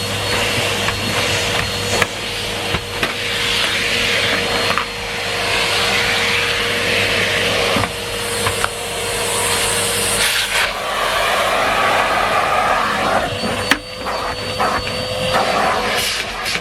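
Numatic Henry Pet cylinder vacuum cleaner running, its motor holding a steady whine while the suction hiss rises and falls. A few light knocks are heard.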